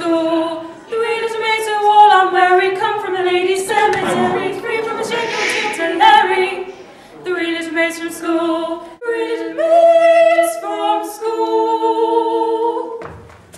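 Voices singing a cappella with no instruments, in phrases of held notes broken by short pauses.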